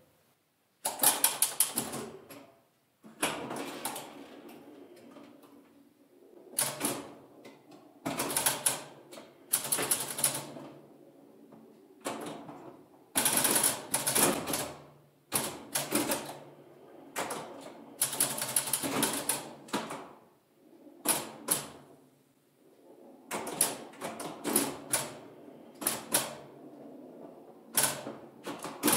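Bally Six Sticks electromechanical pinball machine (1965) in play: bursts of rapid mechanical clacking from its solenoids, relays and stepping score reels. The bursts come every second or two, with short, quieter gaps between them.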